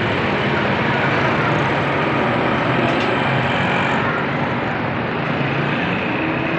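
Steady, loud rushing noise with a faint low hum, unbroken and without clear separate events.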